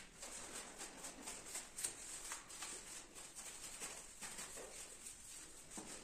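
Faint, rapid scratchy rubbing strokes on ceramic floor tiles as grout is worked into the joints by a gloved hand.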